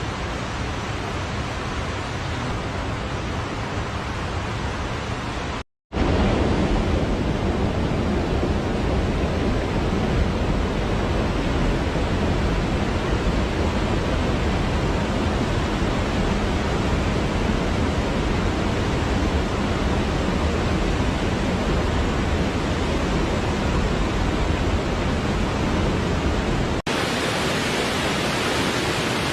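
Steady rush of a waterfall, an even wash of water noise. It cuts out briefly about six seconds in and comes back fuller and deeper, then changes abruptly to a brighter, hissier rush near the end.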